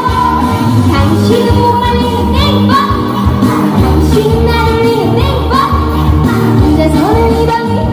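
A young female singer singing a Korean trot song live over loud backing music with a steady bass beat, her voice wavering with vibrato on held notes.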